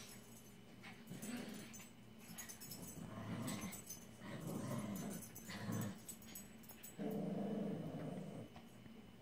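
Two small dogs growling in play as they tug on a toy between them: a series of short growls, then a longer one held for over a second near the end.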